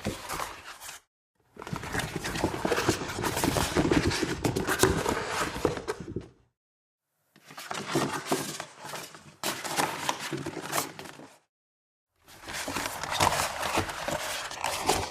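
Rubber party mask being pulled on over the head: the rubber rubs, stretches and scrapes. It comes as four separate takes, a brief one at the start and three longer ones of about four seconds each, with dead silence between them.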